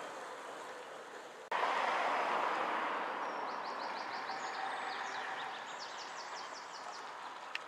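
Vintage bus engines running: first a double-decker pulling away, then after a sudden cut the steady rumble of a bus further off, coming nearer. A small songbird sings two runs of quick, repeated, falling notes over it.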